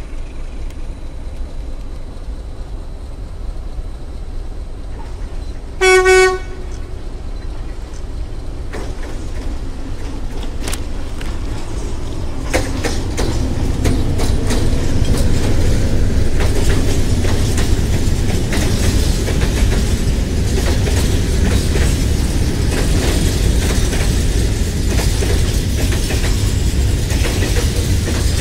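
Unicom Tranzit 060-DA diesel-electric locomotive approaching with a low engine rumble and giving one short horn blast about six seconds in. From about halfway it comes alongside, and a long train of hopper wagons rolls by with wheels clicking and knocking over the rail joints.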